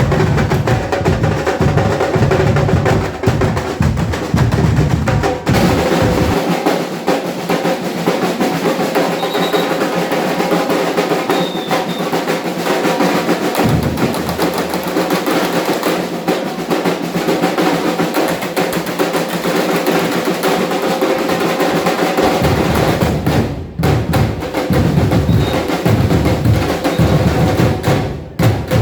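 Batucada drum ensemble playing a fast, steady rhythm: snare drums and high drums rattling over deep bass drums. The bass drums drop out from about six seconds in and come back around twenty-two seconds in.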